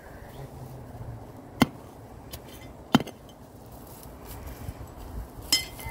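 Hand trowel digging into turf and soil to expose a buried sprinkler head, with three sharp knocks as the blade is driven in, the first about a second and a half in and the last near the end.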